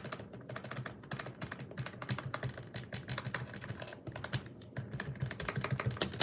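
Membrane keyboard being typed on rapidly, a dense run of key presses, as a sound test of its partly lubed switches.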